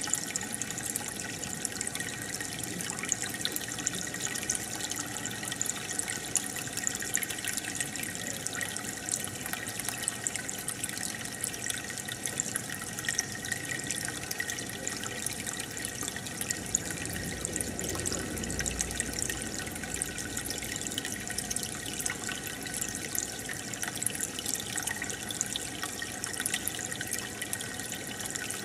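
Aquarium water bubbling and trickling steadily from the tank's aeration and filter, with many fine crackles of bursting bubbles. There is a brief low rumble about two-thirds through.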